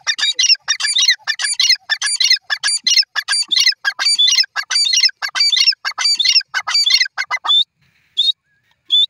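Grey francolin calling: a loud, fast series of high-pitched, repeated short notes that stops about seven and a half seconds in, followed by two single notes.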